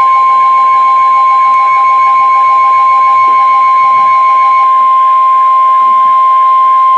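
NOAA Weather Radio 1050 Hz warning alarm tone: one loud, steady, high beep held unbroken, the alert signal that announces a warning broadcast. A fainter pulsing tone sits just beneath it.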